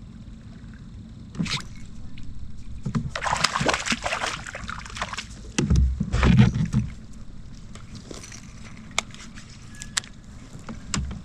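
Water splashing and sloshing beside a kayak as a hooked crappie is brought in. There are heavy low thuds against the kayak about six seconds in, and a few sharp clicks near the end.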